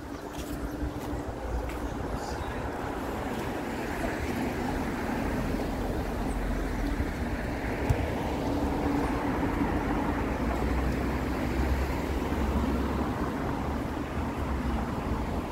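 Steady road traffic: a low engine hum with tyre noise, growing slightly louder in the first few seconds.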